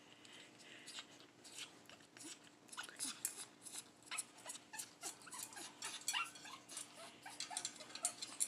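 African grey parrot making soft, short squeaks and clicks in quick succession.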